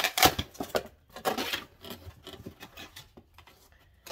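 Corrugated cardboard shipping box being torn open and handled: rough ripping and scraping of cardboard, loudest in the first second and a half, then quieter rustling and rubbing as the book is pulled out.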